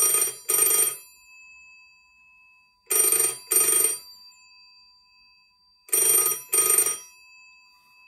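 Bell of an Elektrisk Bureau Telegrafverket rotary-dial telephone ringing in double rings, three pairs about three seconds apart. A faint tone rings on after each pair.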